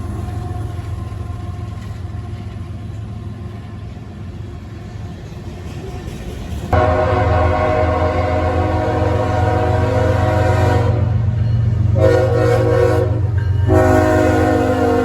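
Diesel locomotive rumbling as the train departs; about seven seconds in, its air horn sounds a long blast, then a short blast, then another long blast that runs on.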